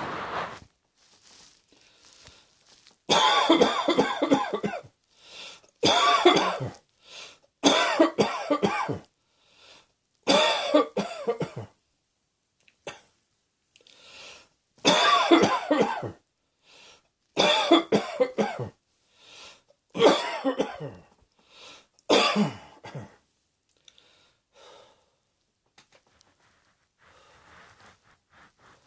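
A person coughing in about eight repeated fits, each a run of several coughs with short pauses between. Near the end it settles into faint, quiet breaths.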